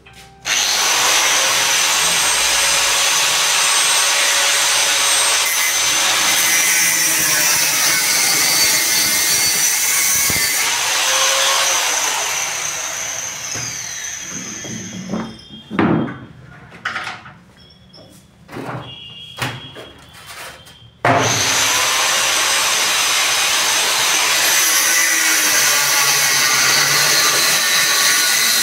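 Handheld angle grinder cutting into a metal table frame with a harsh grinding over a steady high whine. About ten seconds in the cutting eases off and the disc spins down, followed by a few knocks and clatters. At about 21 s the grinder starts up and cuts again, throwing sparks.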